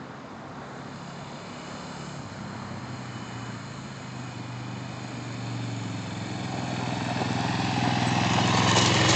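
Sport quad (ATV) engine running and approaching, holding a steady note and growing louder from about halfway through as it comes close.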